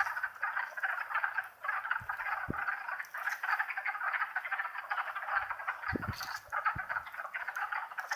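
Wood frog chorus: many frogs giving short, rapid, duck-like clucking calls that overlap into a continuous din.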